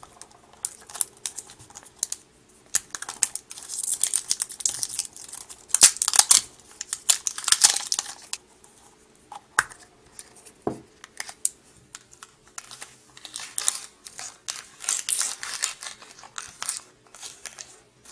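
Crinkling and rustling with many small, irregular clicks and taps, like packaging and plastic being handled up close.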